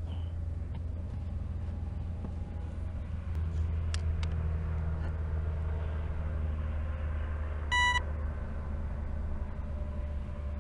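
A steady low hum, with one short electronic beep about eight seconds in and a couple of faint clicks just before the middle.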